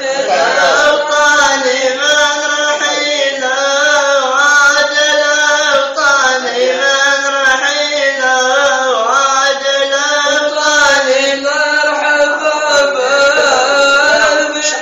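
Male voice chanting a Gulf Bedouin shaila, a long wavering melodic line with slow pitch glides over a steady low held note that runs unbroken beneath it.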